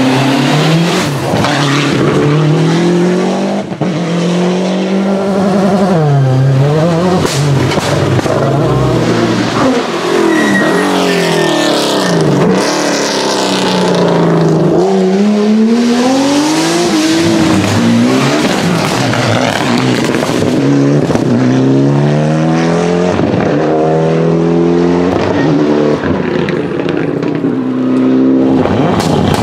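Rally car engines at full throttle, one car after another. Their pitch climbs and drops again and again through gear changes and lifts, with crackling exhaust backfires and pops.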